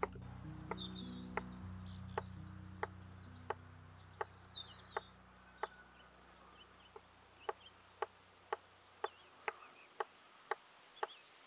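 Soft background music whose sustained low chords fade out, over a steady clicking beat that quickens in the second half. Short high bird chirps sound through the first half.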